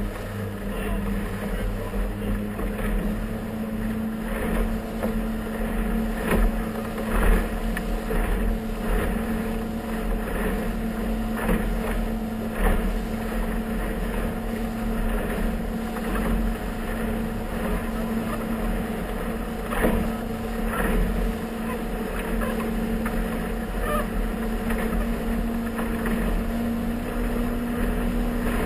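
Motorboat under way: its engine runs with a steady hum while the hull knocks and splashes through the chop at irregular intervals, with wind rumbling on the microphone.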